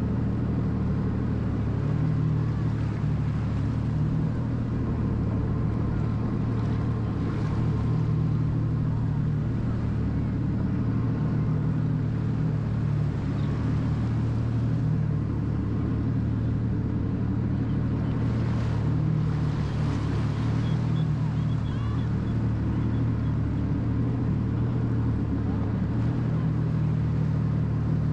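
Jet ski engine running steadily at low speed, an even low hum. Twice a brief hiss of water noise rises over it.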